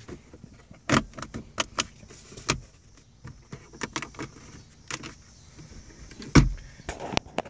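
Plastic clicks and knocks of a Mazda 3's centre-console trim piece being worked down and snapped into its clips over the parking brake lever: a string of sharp taps, the loudest knock about six seconds in.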